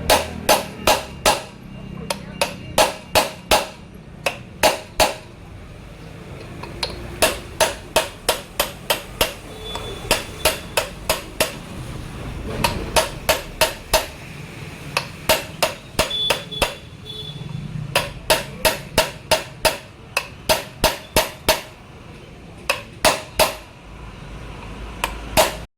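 Hammer striking metal over and over, in runs of several quick blows about two to three a second with short pauses between runs, some strikes ringing faintly. Hammering of the kind done while replacing a motorcycle's chain and sprocket.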